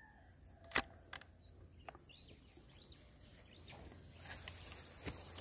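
Air rifle: one sharp click about a second in, then a couple of lighter clicks. Faint bird chirps follow.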